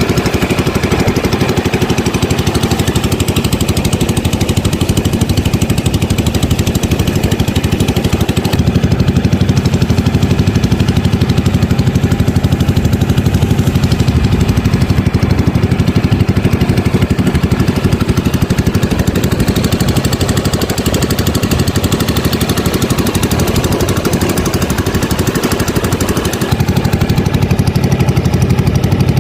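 A small engine running loud and steady at an even speed.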